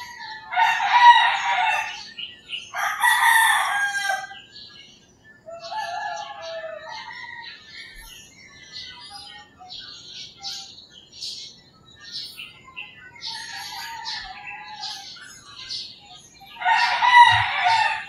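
Roosters crowing: two long crows, one right after the other, in the first four seconds and a third near the end. Small birds chirp and twitter between the crows.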